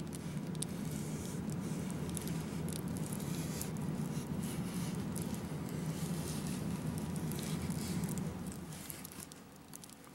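A small hot sealing iron rubbing and sliding over laminating film on a foam model airplane's nose, with scratchy rustling and small crackles as the film is pressed down onto the foam. It eases off near the end.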